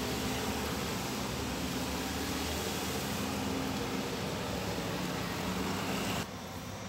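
A steady low mechanical hum with hiss, which drops suddenly in level about six seconds in.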